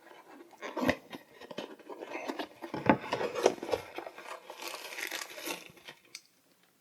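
Microphone box packaging being handled: cardboard and wrapping rustling and crinkling, with scattered clicks and taps.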